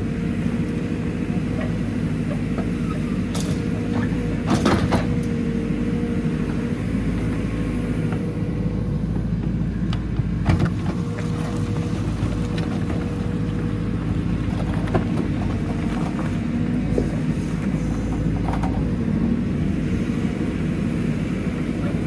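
JCB 4CX backhoe loader's diesel engine running steadily under load as the backhoe arm drags its bucket through the topsoil and lifts it, with a steady whine through it. A few sharp knocks stand out, around 3 to 5 seconds in and again near the middle.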